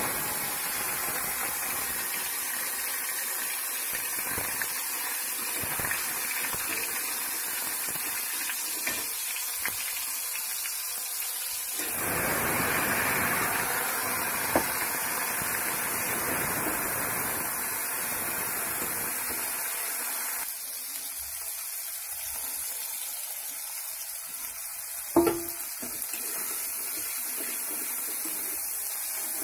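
Onion and spice paste sizzling in hot oil in a wok. The sizzle swells loudly for a few seconds as the bowl is tipped in, about twelve seconds in, then settles to a steady frying hiss under stirring, with a sharp clack of utensil on pan about twenty-five seconds in.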